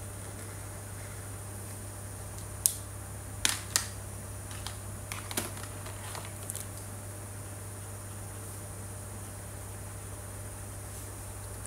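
A cluster of sharp plastic clicks and light clatter as acrylic paint markers are capped, put back and picked out of their set: three louder clicks close together, then several softer ones over the next three seconds. A steady low electrical hum and hiss lie underneath.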